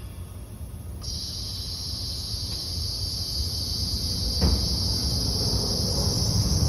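Steady high-pitched hiss of compressed air, starting abruptly about a second in, as air drives an air-powered aircraft line jack, over a low rumble that grows slowly louder. A single knock about four and a half seconds in.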